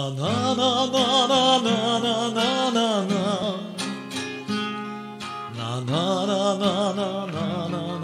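Instrumental song intro: a nylon-string classical guitar and a steel-string acoustic guitar playing, under a held, wavering melody line of long notes.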